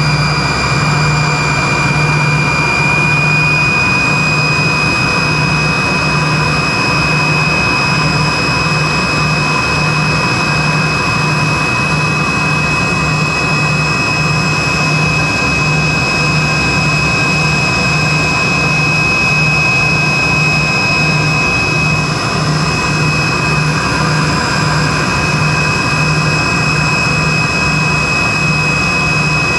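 Steady cabin noise of a Tupolev Tu-134B-3 in flight from its rear-mounted Soloviev D-30 turbofans: a constant rush with a high, steady whine that rises slightly about three seconds in, over a low hum that throbs about once a second.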